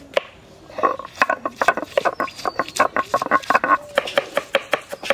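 Knives chopping ginger and cabbage on wooden boards: quick, irregular knocks, several a second.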